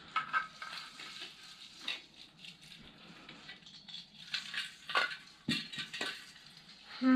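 Christmas ornaments being hung on the branches of a small artificial tree: scattered light clicks, taps and rustles as the baubles and wire hooks knock against each other and the plastic needles.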